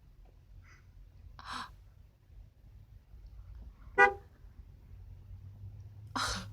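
A car horn gives one short toot about four seconds in. There are breathy infant gasps, a sharp one about a second and a half in and a louder one about two seconds after the honk.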